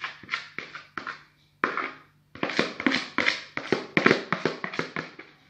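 A spatula scraping and tapping against the inside of a plastic mixing bowl as thick pastry cream is scraped out: a run of short, irregular strokes, a few at first, then a quick busy series over the second half.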